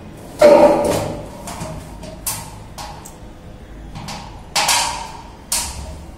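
Metal satellite dish and its mounting bracket and arm clanking as they are handled. A loud clank with a brief ring comes about half a second in, followed by a few lighter knocks, a second loud clank past the middle and a last sharp knock near the end.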